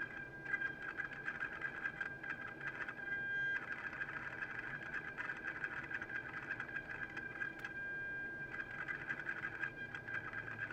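Vintage aircraft altitude indicator's servo motor and gear train whirring as it drives the pointer and drum counter down through the descent, over a steady high-pitched hum. The whirring stops briefly twice, about three seconds in and about eight seconds in, leaving only the hum.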